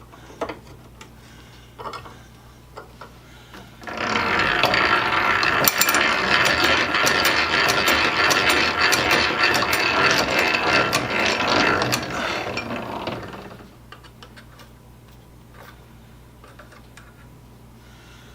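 Hand-cranked drill turning, its gears clicking and ratcheting as the bit bores into the forge's tuyere plate, starting about four seconds in and running for about nine seconds. Light clicks and handling before and after.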